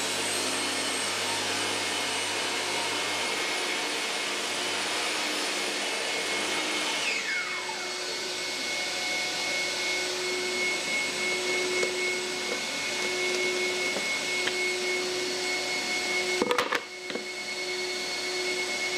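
Table saw and dust extractor running with a steady whine. About seven seconds in, a high motor whine falls quickly in pitch as one motor is switched off and winds down, while the extractor's steady hum runs on. A couple of short knocks come near the end.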